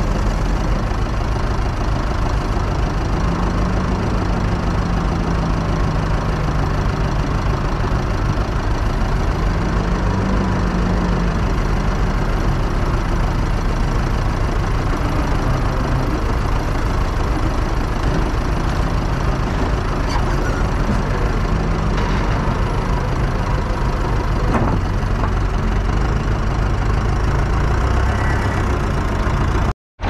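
Diesel engines running: the Massey Ferguson 285 tractor's four-cylinder diesel idling close by, while the backhoe loader's engine twice rises and falls in pitch as it works its loader bucket. The sound drops out for a moment near the end.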